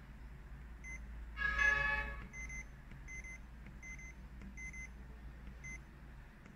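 Short electronic key beeps from the BRT LB78 signal generator, one for each press of its down button, coming about two to three times a second as the mA output is stepped down. A brief voice-like sound comes about one and a half seconds in.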